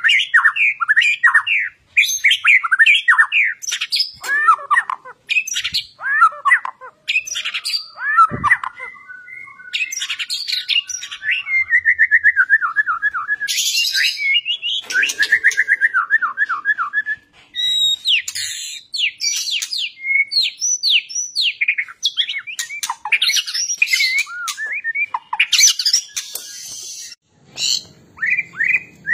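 White-rumped shama singing a rapid, varied song of loud whistles, fast runs of repeated notes and harsh rasping calls, in the energetic, persistent 'fighting' style that shama keepers prize. Near the end another shama takes over, with a low hum under its song.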